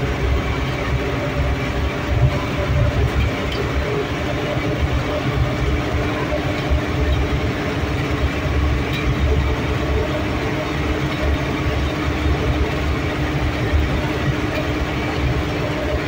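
Vehicle driving along, heard from inside the cab: a steady engine and road rumble, deep and even throughout.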